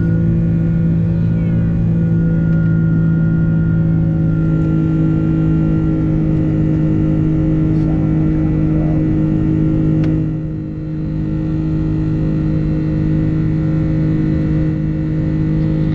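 Airbus A330's Rolls-Royce Trent 700 engines running at high power, heard inside the cabin as a loud, steady drone with several even hum tones over a deep rumble. The drone dips briefly about ten seconds in.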